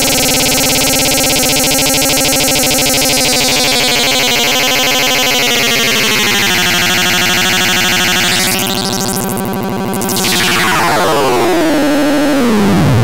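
Loud electronic synthesizer sound: dense, buzzy stacked tones that shift in pitch. About two-thirds of the way through it dips and sweeps, then glides steadily downward in pitch to the end.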